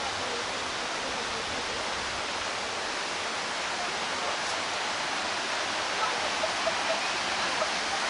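The Bigăr waterfall's falling water rushing steadily and evenly.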